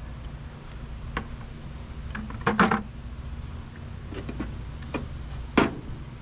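Metal clinks and clunks of internal parts being worked out of the case of a Chrysler 727 TorqueFlite automatic transmission: a few light clicks, a louder cluster of clanks a little over two seconds in, and one sharp clink near the end.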